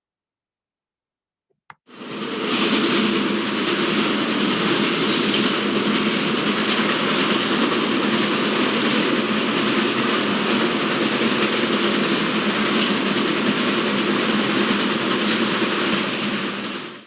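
Train running on rails, played as a sound effect: a steady rush and rumble with faint, evenly spaced clacks. It starts about two seconds in, just after a small click, and stops right at the end.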